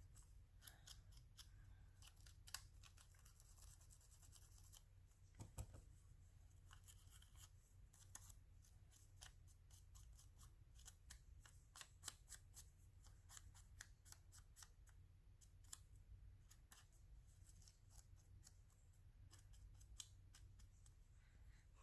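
Faint, irregular small clicks and snips of scissors working the edges of a thin magazine page, distressing the paper.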